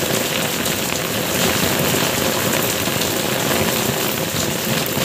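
Steady rain pouring and splashing on hard ground, an even hiss with no break.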